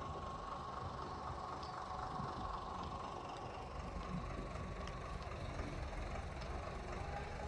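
Steady engine hum, with a thin, steady high whine over it.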